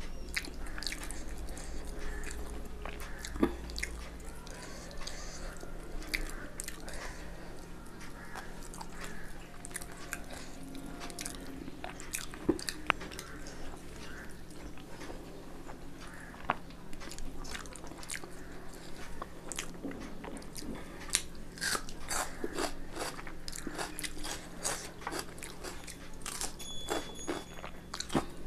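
A person eating close to the microphone, chewing and crunching food with many small mouth clicks. The clicks come much thicker in the last third.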